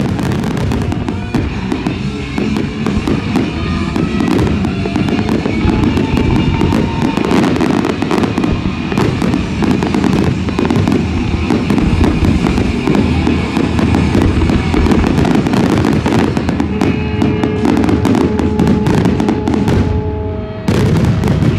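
Dense barrage of aerial fireworks shells bursting in rapid succession, the reports running together into a continuous rumble: the grand finale of the display. A short lull near the end is followed by a last loud volley, with a music soundtrack underneath.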